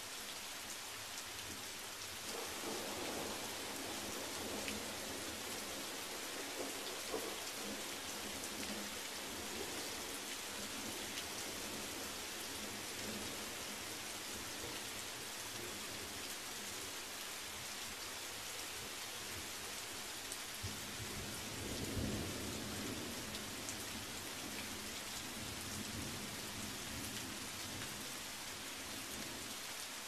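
Steady rain falling and pattering on surfaces, with a low rumble of thunder starting about two seconds in and a louder one a little past two-thirds of the way through.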